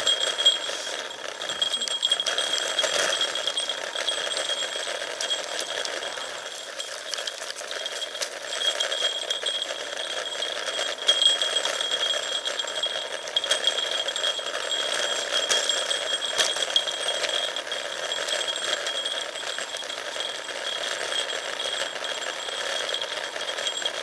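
Road bike coasting downhill over rough tarmac: a steady high buzz from the freewheeling rear hub, with the frame and handlebar-mounted gear rattling and ticking over bumps, and wind noise.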